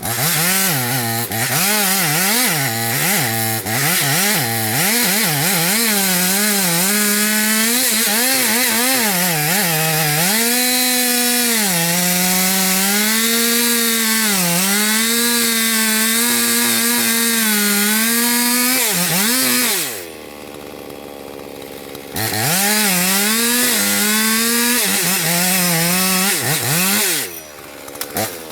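Chainsaw running at high revs while cutting wood, its engine pitch repeatedly dipping and recovering. About twenty seconds in it drops to a quieter, lower running for a couple of seconds, then revs up again before falling away near the end.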